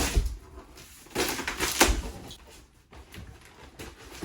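A blade slitting the packing tape on a cardboard wheel box, with the box being handled: a short scrape at the start and a longer one about a second in, with a few dull thumps.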